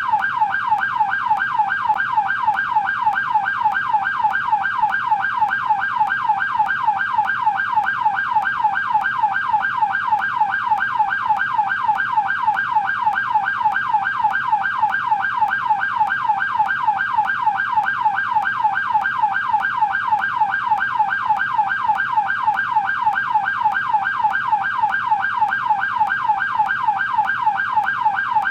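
American police car siren on its yelp setting: a steady, fast up-and-down wail that repeats several times a second without a break.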